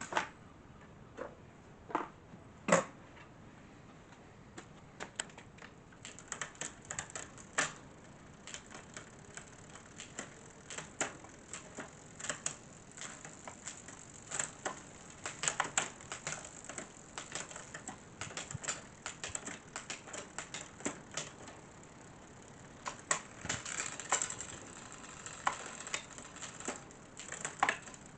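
Irregular clusters of small metallic clicks and ticks from hands-on work on a bicycle's rear shift cable and derailleur, a few sharp clicks early and then dense runs of rapid ticking.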